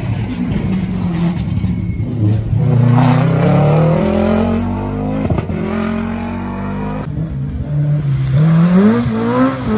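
Historic rally car's engine approaching flat out, revving hard and climbing in pitch through the gears, with short drops at each gear change, loudest in the last couple of seconds as it nears.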